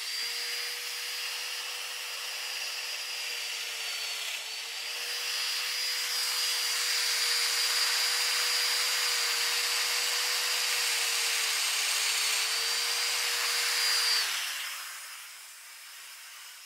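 Festool Domino joiner running with a steady whine while its cutter mills a mortise into hard maple, the cutting noise louder from about five seconds in. About fourteen seconds in it is switched off and the whine drops away as the motor spins down.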